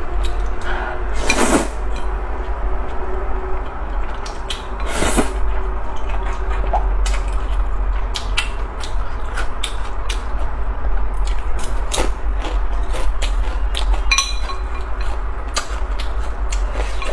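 Close-miked eating of slippery wide liangpi noodles in chili oil: wet slurps, chewing and lip smacks with many small mouth clicks. Two louder slurps come about a second and about five seconds in, over a steady low hum.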